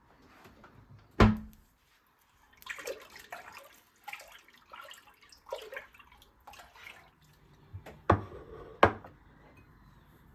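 Kitchen sink sounds: a sharp knock about a second in, a few seconds of irregular splashing and rinsing water, then two more sharp knocks near the end.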